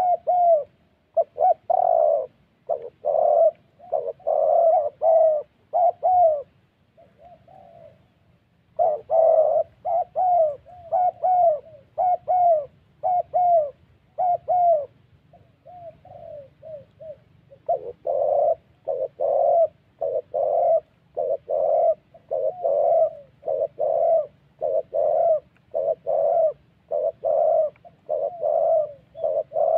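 Spotted doves cooing close by: a fast run of short, low coos, about two a second, that eases off briefly twice. A wild dove and a caged decoy are squaring up to each other, so this is territorial cooing.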